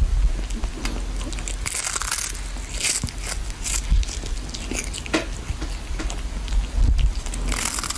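A cat biting and chewing a small fish held in its paws, with irregular crisp crunches.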